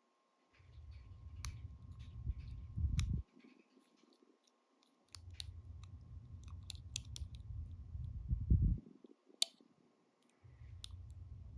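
Dimple lock pick working in the keyway of an Ultion 3-star dimple lock: scattered small metallic clicks and ticks, one sharper click about nine seconds in, over a low rumble of hand handling that stops and starts.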